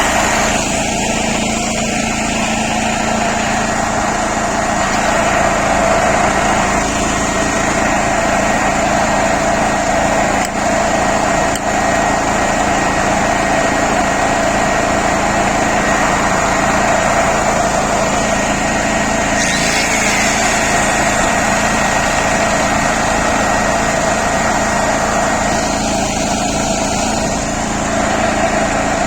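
Spets SB6500E2 petrol generator running steadily under load while powering an electric angle grinder. The grinder's motor whine sits over the engine noise.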